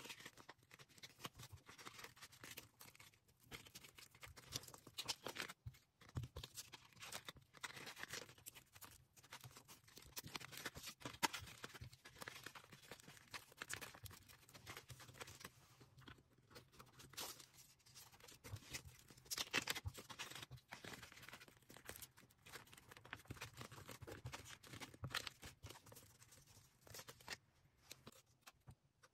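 Hands packing orders: plastic packaging handled and crinkled, making a soft, irregular stream of crackles, rustles and small clicks.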